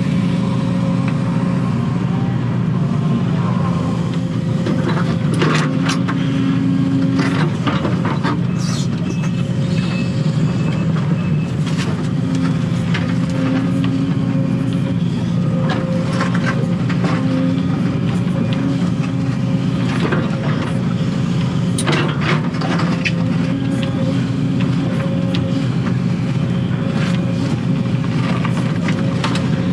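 Excavator's diesel engine and hydraulics running steadily, heard from inside the operator's cab. Scattered knocks and scrapes come through as the bucket and hydraulic thumb work through dirt and stumps.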